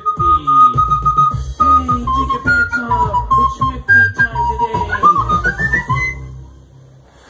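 White plastic recorder playing a melody of held notes over a backing beat with deep bass and drum hits. Near the end the recorder climbs in a rising run, and the music stops about six seconds in.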